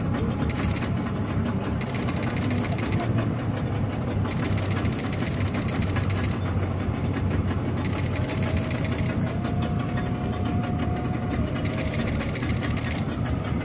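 Boat's outboard motor running steadily at cruising speed.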